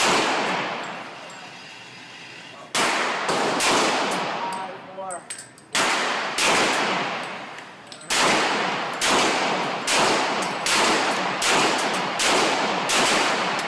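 Glock 35 pistol firing .40 S&W rounds, about a dozen echoing shots: a few spaced shots, then a steady string of about seven shots in five seconds near the end.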